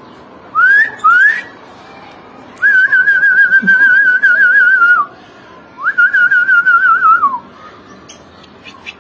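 A person whistling close to the microphone: two short rising whistles about a second in, then two long warbling notes, the second falling away at its end.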